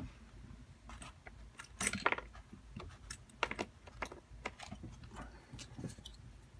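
Small metallic clicks and rattles of a padlock and metal tools being handled, with a louder jangle about two seconds in.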